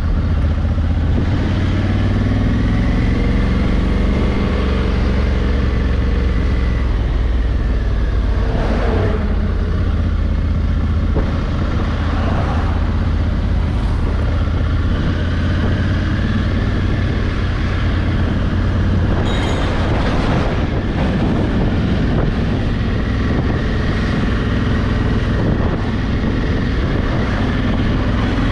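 Honda Africa Twin's 1100cc parallel-twin engine under way, its revs rising and falling through the gears, with wind rush on the helmet camera. Two brief swells of noise, about a third and two-thirds of the way through, as traffic goes past.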